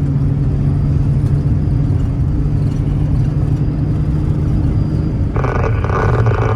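Steady drone of a 1992 Holden VP Commodore driving, heard from inside the car: a constant low engine and road hum. About five seconds in, the hum shifts slightly and a hiss starts and stops abruptly about a second and a half later.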